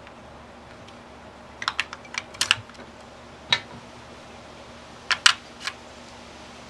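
Batteries being pressed into the spring contacts of an RVLock keyless door handle's battery compartment: a quick run of sharp clicks about two seconds in, a single click past halfway, and three more clicks near the end.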